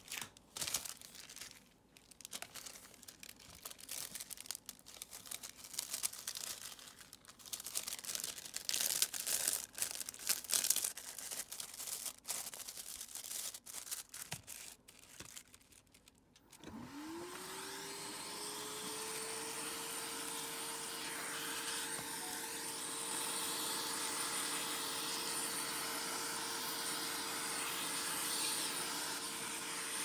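Clear plastic heat-shrink film crinkling and rustling as a remote control is worked into the bag. About halfway through, a heat gun switches on, its fan whine rising quickly to a steady pitch, and it runs with a steady rush of hot air to shrink the film around the remote.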